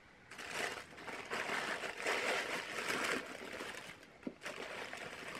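Tissue paper rustling and crinkling as it is unwrapped by hand from around a shoe, louder in some stretches than others.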